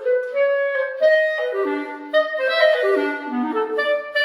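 Solo clarinet playing a fast passage, the notes changing several times a second.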